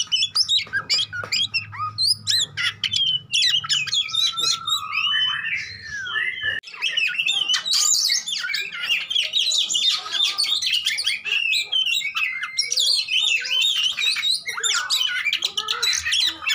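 Male oriental magpie-robin singing in full voice: a fast, varied run of chirps, sweeps and whistles, with a longer gliding whistle a few seconds in. After a break about six seconds in, the song becomes denser and more rapid.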